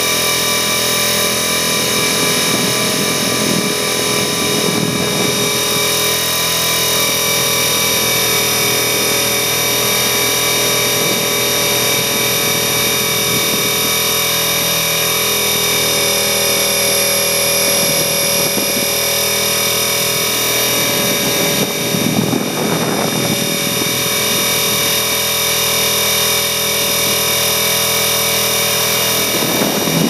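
MD 500 helicopter in flight: a steady whine of many held tones over rotor noise, with a brief louder rush of noise about two-thirds of the way through.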